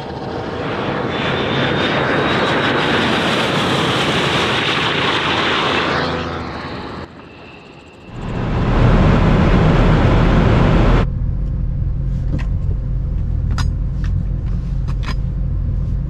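Rimac Nevera electric hypercar running at high speed down the runway: a high motor whine that rises slightly over rushing wind and tyre noise, fading after about six seconds. About eight seconds in, a deep, steady engine drone from the Bugatti Chiron Super Sport's quad-turbo W16 takes over and carries on.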